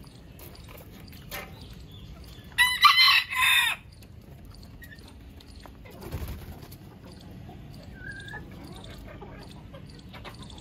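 A rooster crows once, about two and a half seconds in: a loud call of a little over a second in three joined parts. Chickens cluck and peep quietly around it.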